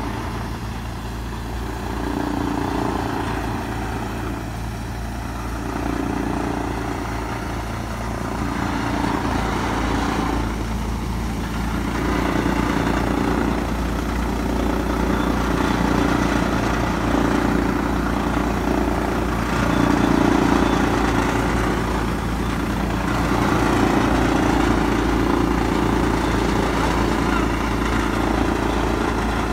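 Wheat thresher driven by a Kubota MU5501 tractor's diesel engine, running under load as bundles of wheat are fed into its drum. Under a steady low hum, a louder drone swells and fades every couple of seconds.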